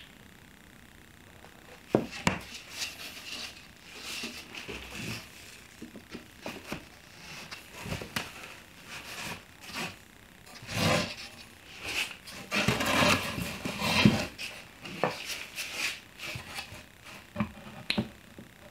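Pine door rails and a plywood panel being glued and fitted together on a workbench: irregular wooden knocks, taps and scrapes, busiest in the second half.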